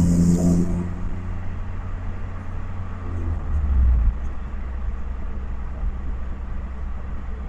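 1991 Honda Accord's engine and exhaust under way. The engine note is strong in the first second and then eases off, swells briefly around three to four seconds in, and settles to a steady low rumble.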